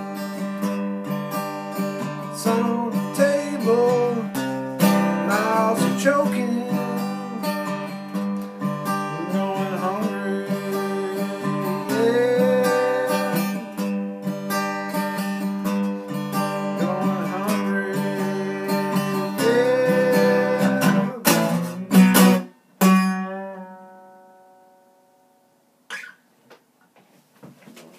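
Steel-string Takamine acoustic guitar played fingerstyle and strummed, with sliding notes. It ends on a few hard strums about 22 seconds in, and the last chord rings out and fades. A single knock follows near the end.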